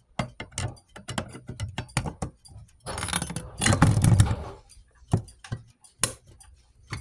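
Fire alarm pull station being reset by hand: a string of clicks and knocks from its handle mechanism, with a longer jangling rattle about three seconds in.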